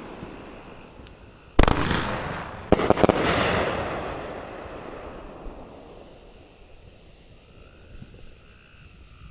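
Aerial fireworks cake firing its last shots. The echo of one burst is fading out, then a sharp bang comes about a second and a half in and two more in quick succession near three seconds. Each is followed by a long rolling echo that slowly dies away.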